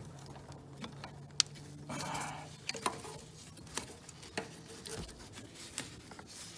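Scattered light clicks and knocks of tools and metal and plastic parts being handled while hoses and clamps are worked loose, with one sharper click about a second and a half in and a short rustle soon after.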